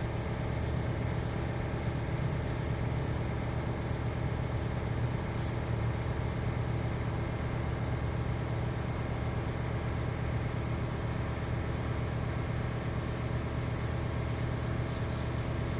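Air compressor motor and pump running steadily as it builds the tank back up to pressure, a constant hum.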